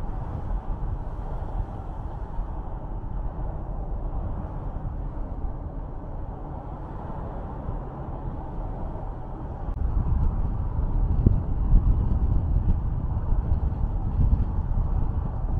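Car driving on a highway: steady road and engine noise, with a louder low rumble from about ten seconds in.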